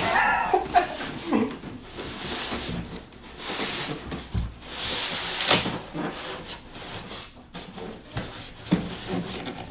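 Packaging rubbing and scraping in irregular surges, with a few sharp knocks, as a tight-fitting piece is worked out of a monitor's box.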